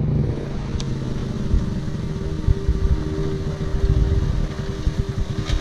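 ATV engine running as the quad approaches over a gravel road, a continuous low rumble with a steady drone underneath.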